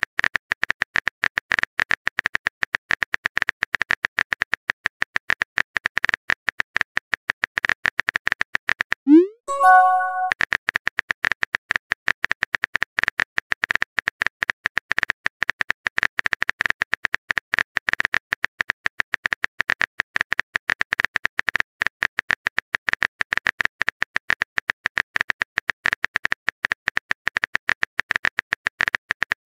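Texting-app keyboard sound effect: a rapid, steady stream of typing clicks. About nine seconds in, a short rising pop-like tone sounds as a message is sent, and then the clicking resumes.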